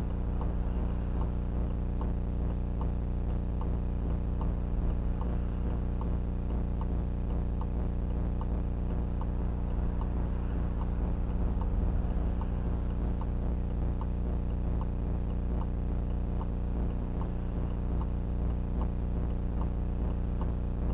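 VIOFO A119S dashcam recording a loud, steady electrical hum on its audio track. Regular ticks, about two a second, run through the hum.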